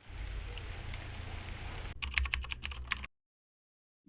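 A low steady hum, then about a second of rapid sharp clicks, roughly ten a second, like typing, cut off into dead silence.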